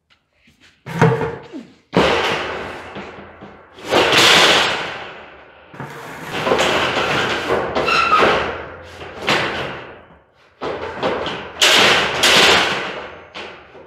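A run of a dozen or so loud bangs and clangs from heavy steel pallet-rack parts being handled and fitted together. Each strike dies away over a second or so, and one near the middle leaves a metallic ring.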